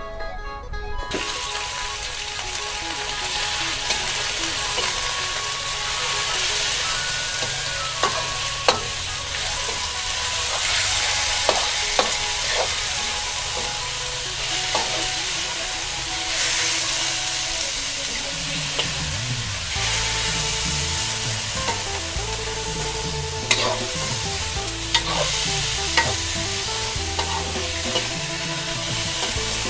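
Raw pork pieces sizzling in a hot wok as they are stir-fried, with a steady frying hiss and a metal spatula scraping and clinking against the wok at irregular moments.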